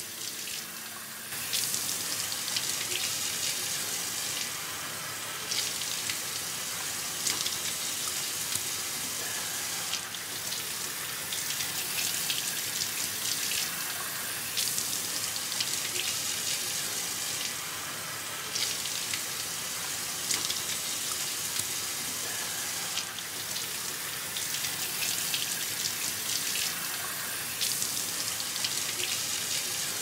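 Water running from a chrome mixer tap into a sink basin, splashing as blood is washed off hands rubbed under the stream and water is scooped up onto the face. The running water gets louder about a second and a half in.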